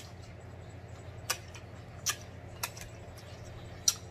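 Close-miked mouth sounds of a man chewing food: sharp, wet lip-and-tongue smacks, about five spread over four seconds.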